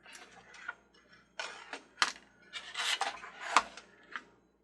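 Hands working on a plastic toy carousel: a run of rubbing and scraping noises broken by sharp clicks, the loudest clicks about two seconds in and again about three and a half seconds in.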